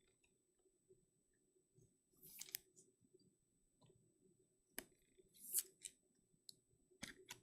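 Trading cards, plastic top-loaders and pack wrappers being handled: a few soft, scattered clicks and short rustles over a quiet background hum.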